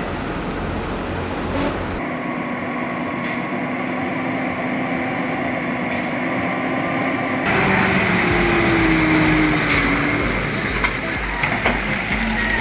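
Heavy vehicle engine running, the sound changing abruptly about two seconds in and again past seven seconds, with a slowly falling whine after that.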